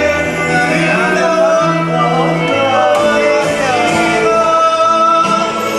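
Background music: a song with a singing voice over sustained bass notes.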